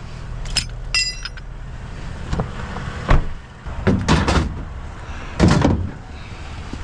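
Stainless steel scrap being loaded into a vehicle: a short metallic clink that rings briefly about a second in, then several knocks and thuds as pieces are set down, over a steady low rumble.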